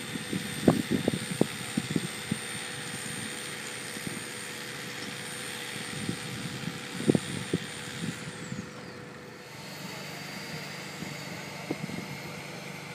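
A truck-mounted crane's engine running steadily with a constant hum as it holds a load. Scattered low knocks and thumps come through, mostly near the start and again about seven seconds in.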